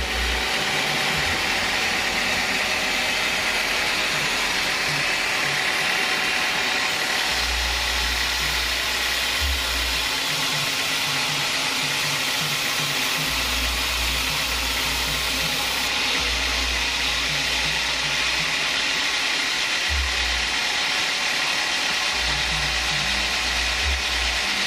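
Home-built band sawmill running, its band blade sawing through a teak log: a loud, steady whir from the machine and cut, with a low rumble that comes and goes every few seconds.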